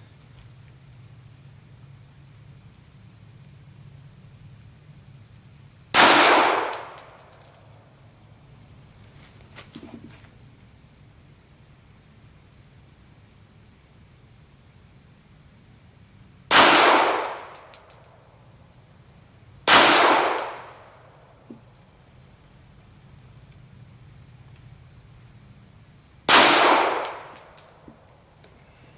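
Four single shots from a 9mm Glock 17 Gen 4 pistol, fired slowly and several seconds apart, each followed by a brief echo.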